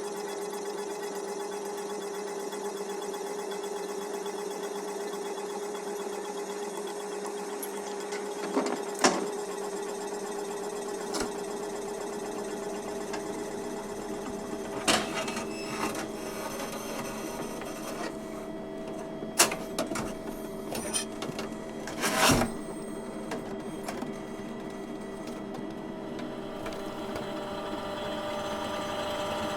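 Copy machine running with a steady mechanical hum. Sharp clacks come through at intervals: one about nine seconds in, others around fifteen and nineteen seconds, and a cluster about twenty-two seconds in.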